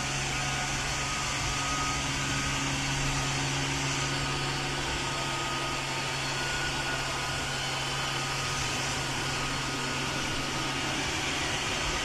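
Robot vacuum cleaner running steadily: an even whirr of its suction fan with a constant low hum.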